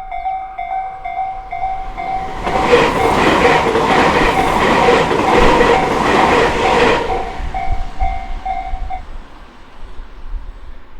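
Japanese level-crossing warning bell ringing in a steady repeating pattern while a Tobu Isezaki Line electric train passes over the crossing with a rhythmic clickety-clack of wheels on the rail joints. The train is loudest from about two to seven seconds in, and the bell stops about nine seconds in.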